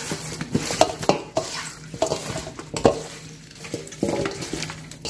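Chicken feet being mixed by hand with spice marinade in a stainless steel bowl: wet squelching and scraping, with irregular knocks of the feet against the bowl.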